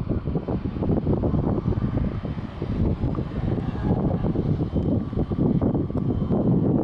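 Wind buffeting the camera's microphone: a low rumble that rises and falls unevenly.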